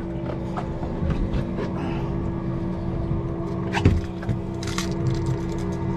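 Mercury outboard motor running steadily at trolling speed, a constant hum, with scattered knocks and clicks of gear on the boat and one sharp knock about four seconds in.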